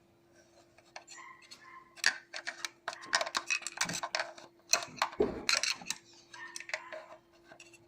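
Screwdriver and metal engine parts clicking, tapping and scraping irregularly as the chain guide blade is pushed in to fit a new timing-chain tensioner, busiest in the middle.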